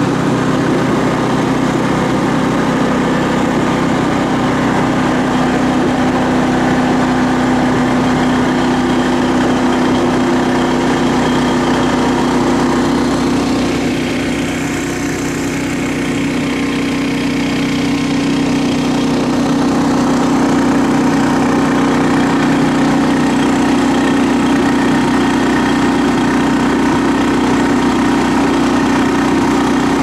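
Small engine of a ride-on carrier running steadily under load as it climbs a forest track, easing off slightly about halfway through and then pulling a little louder.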